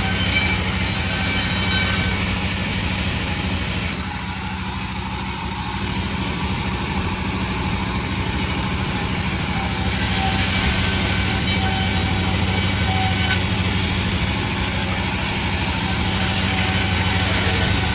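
Panda36 sawmill running steadily with a low engine drone. A higher, hissing saw noise fades a few seconds in and swells again about ten seconds in and near the end.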